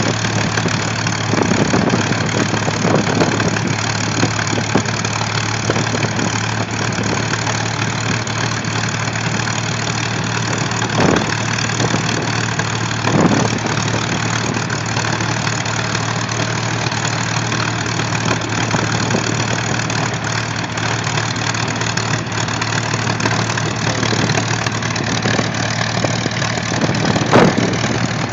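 P-51 Mustang's Packard Merlin V-12 idling steadily on the ground with its cowling panels open, the propeller turning. A few brief louder swells come and go.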